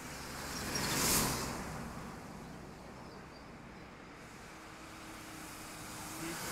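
A car driving past on the road: tyre and engine noise swells to a peak about a second in and fades away. Near the end a bus approaching grows louder.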